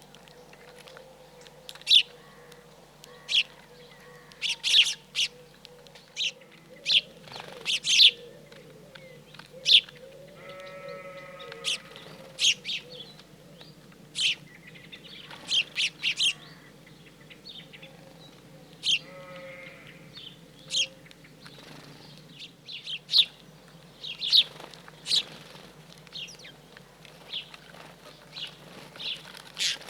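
Small wild birds at a feeder giving short, sharp chirps at irregular intervals. Bleating livestock calls twice, once about ten seconds in and again around nineteen seconds.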